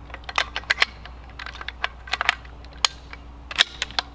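Bolt of a Bergara B-14 .22 LR bolt-action rifle being worked by hand: a quick run of sharp metallic clicks and clacks in clusters, the loudest about three and a half seconds in, as a double-fed round is cleared from the action.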